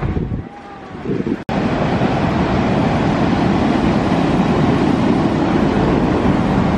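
Rough sea surf breaking steadily on a beach, with wind rumbling on the microphone. It comes in suddenly about a second and a half in, after a short stretch of quieter street ambience.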